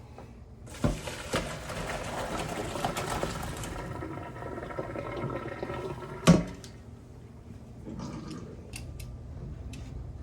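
Kitchen work sounds: a knock, then about three seconds of running or pouring water. A single loud clank of a pot or utensil comes about six seconds in, and a few light ticks follow near the end.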